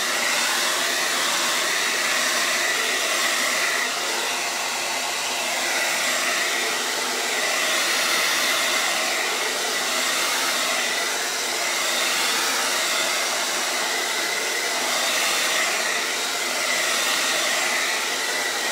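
Handheld hair dryer blowing steadily, with a thin motor whine, drying freshly applied chalk paste on a silkscreen stencil.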